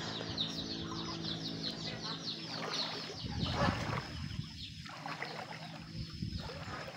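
Poultry calling: a fast run of high, short chirps, thinning out after a few seconds, with a rush of noise about three seconds in.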